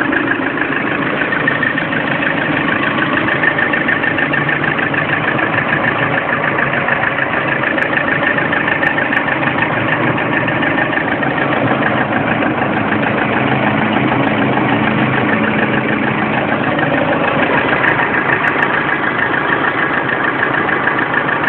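Lada Priora's four-cylinder petrol engine idling steadily when warm, with a rhythmic knock. The owner has had this knock at hot idle since about 400 km.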